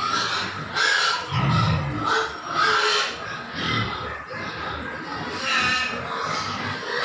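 A pen of young pigs grunting, a string of short, uneven calls from several animals at once.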